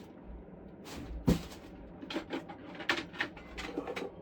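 A sharp knock about a second in, then a run of lighter clicks and knocks: objects being handled and set down.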